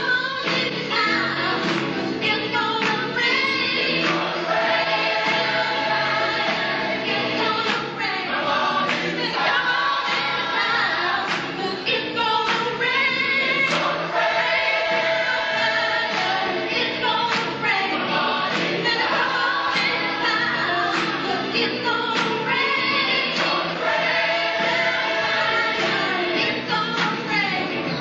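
A choir singing gospel music over a steady beat, with many voices holding sustained notes together.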